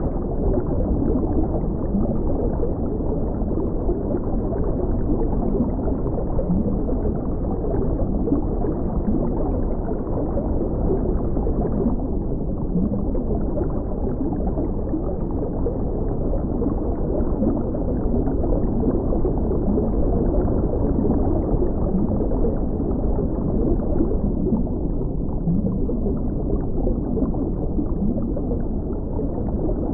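Steady, muffled underwater water noise: an even low rush of water with no high end, running unchanged.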